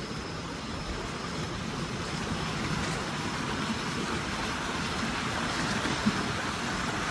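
Steady, even rushing noise of the open air, growing slightly louder, with one soft tap about six seconds in.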